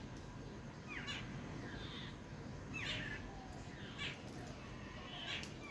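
Birds calling in a tree: short, sharp calls repeated about once a second, over a steady low background rumble.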